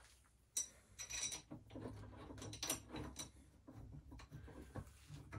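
Faint, irregular metal clicks and knocks as a lead-screw support bracket is slid over the mill table's lead screw and fitted into place, starting about half a second in.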